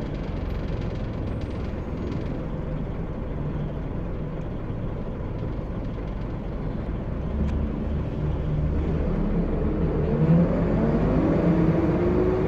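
Scania L94UB single-decker bus heard from inside the saloon: a steady low engine and road rumble, then from about two-thirds of the way in the sound gets louder and a whine climbs in pitch as the bus pulls harder.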